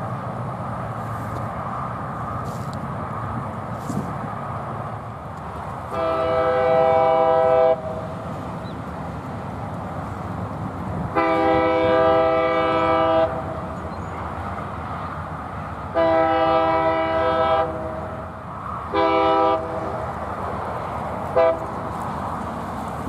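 Air horn of CN 2445, a GE C40-8M diesel locomotive, blown as a grade-crossing warning: three long blasts, a short one, then a brief toot near the end. A steady diesel engine rumble runs underneath as the train approaches.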